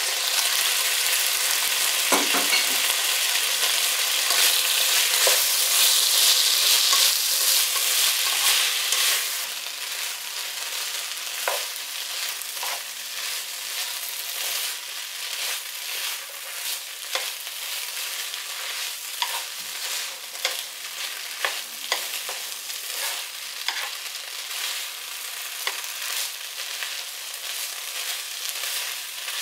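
Fried rice with beef and spinach sizzling in oil in a pot, stirred with wooden chopsticks that knock and scrape against the pot. The sizzle is loudest for the first nine seconds or so, then drops noticeably and carries on more quietly under the stirring knocks.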